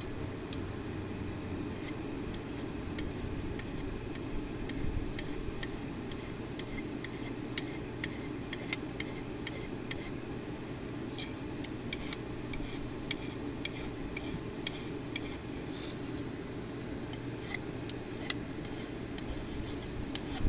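Many light, irregular metallic clicks and scrapes of a hand file being worked over the hot tip of an old cold chisel that is being made into a center punch, over a steady low hum.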